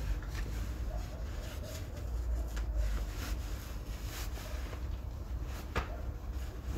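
Steady low rumble with a few faint clicks, and one sharper click near the end.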